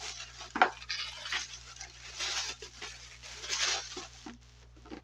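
Handling noises on a tabletop: rustling and rubbing that swell twice, with one sharp knock a little over half a second in.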